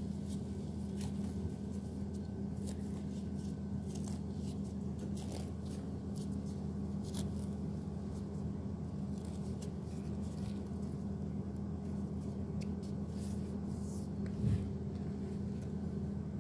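A steady low hum with scattered light clicks and rustles of handling, and a single soft bump about fourteen seconds in.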